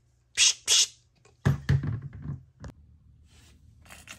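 Two short bursts of compressed air hissing from an air-compressor blow gun pressed into an aerosol can's valve, about a third of a second apart, recharging the can with air. About a second and a half in comes a louder clatter of handling, then a single click.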